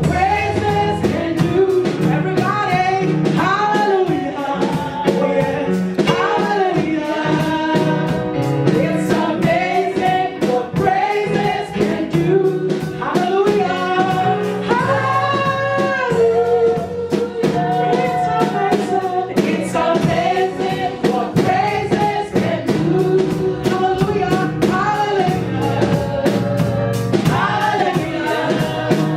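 Gospel worship song: voices singing together over a band with a steady beat.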